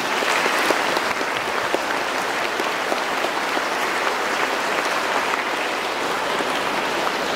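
Large audience applauding steadily: many hands clapping at once in a dense, even patter.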